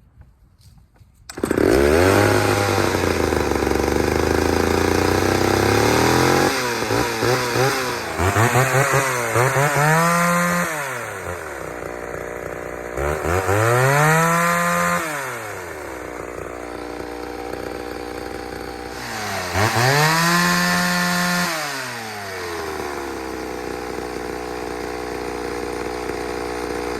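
Two-stroke chainsaw starting about a second in, then running and being revved up several times, dropping back to idle between revs. It runs properly, not lean, on old leftover fuel.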